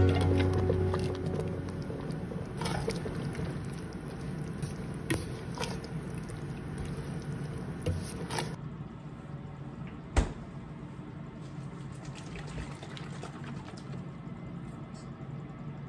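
Thick curry simmering in a pot, bubbling with many small pops, as background music fades out in the first couple of seconds. A single sharp click about ten seconds in.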